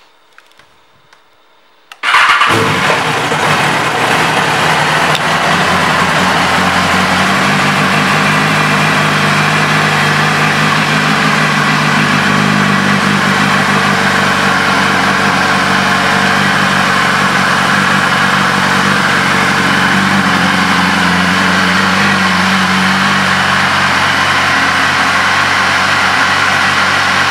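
2015 BMW S1000RR's inline-four engine starting about two seconds in after a few faint clicks, then idling steadily.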